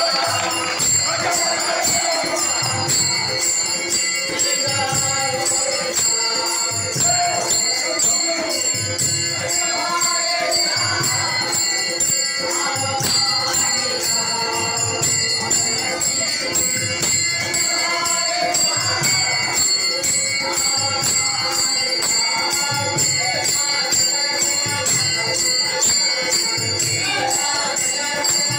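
Varkari bhajan music: taal hand cymbals ringing in a steady fast rhythm with a mridang drum, under group singing of an abhang.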